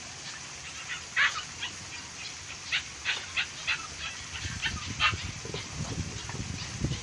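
A string of short, sharp animal calls, about a dozen spread over a few seconds, with a low rumble coming in from about halfway.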